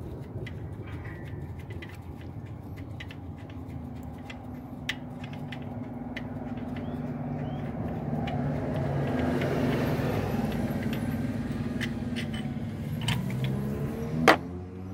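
A motor vehicle's steady engine drone that swells to a peak about two thirds of the way through and eases off again, with scattered light clicks and one sharper click near the end from hands handling engine-bay parts.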